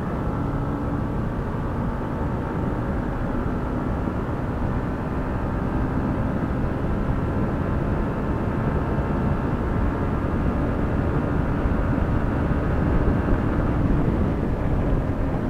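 Yamaha MT-15's single-cylinder engine pulling steadily in fifth gear at highway speed, gradually growing louder as the bike gains speed, under a heavy rush of wind.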